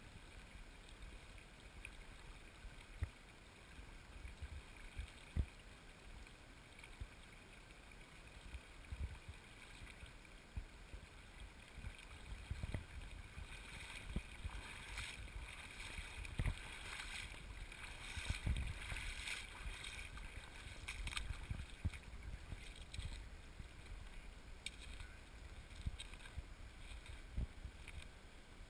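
A shallow stream running over gravel, with wind buffeting the microphone and scattered low thumps. The hiss swells for several seconds around the middle.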